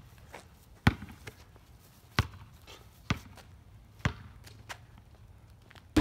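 A basketball being dribbled on an asphalt driveway: four sharp bounces about a second apart, with a few fainter taps between them.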